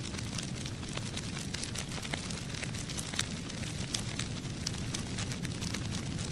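Dense, irregular crackling with sharp clicks over a steady low rumble.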